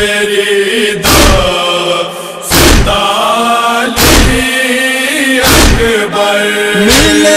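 Noha lament: voices chanting long held notes over a steady beat of heavy chest-beating (matam) thumps, about one every second and a half, five in all.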